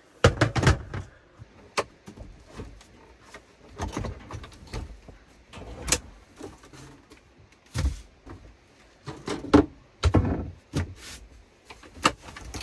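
Irregular knocks, clunks and rattles of camping gear being handled and set down inside a camper van, with several louder knocks about a second in, near the middle and toward the end.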